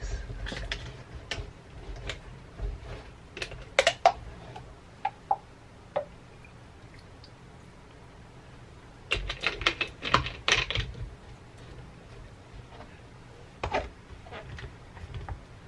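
Scattered light clicks and knocks from handling plastic kitchen items: a plastic lemon juice bottle is opened, poured and set down, and a personal blender's plastic jar is handled on the countertop. The clicks come in small clusters, busiest about nine to eleven seconds in. The blender motor does not run.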